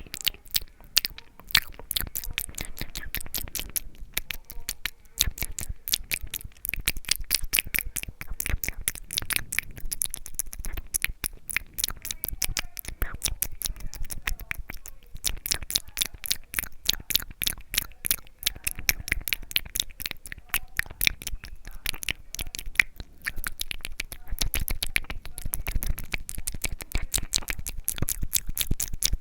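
ASMR mouth sounds close to the microphone: a steady stream of wet clicks and smacks from the lips and tongue, several a second, with no pauses.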